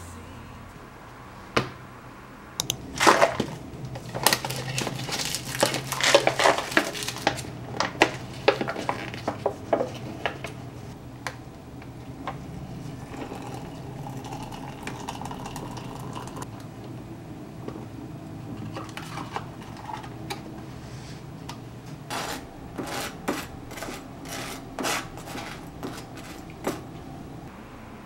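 Clicks, taps and clatter of small objects being handled: a laptop lid being shut, then an instant soup-pasta cup being opened and stirred with a wooden spoon. The handling comes in two busy stretches, over a low steady hum.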